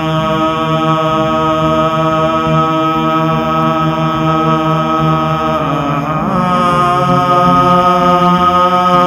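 Chanted vocal music: low voices holding long, steady notes, moving to a new note about six seconds in.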